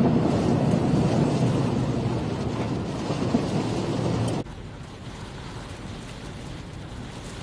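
Hurricane wind and rain making a heavy, steady rush, which drops abruptly about four and a half seconds in to a quieter rush of wind.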